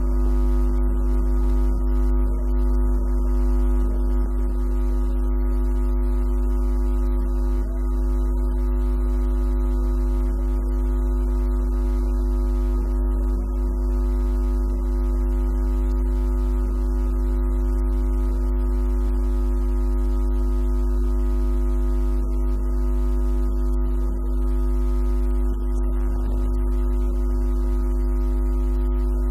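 A steady drone of several held tones over a deep low hum, unchanging in pitch and level.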